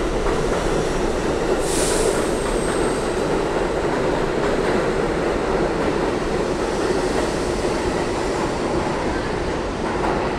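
Budd R32 subway train pulling out of the station, its stainless-steel cars running past on the rails with a steady loud rumble of wheels on track. A brief high wheel squeal comes about two seconds in, and the sound eases slightly near the end as the last car clears.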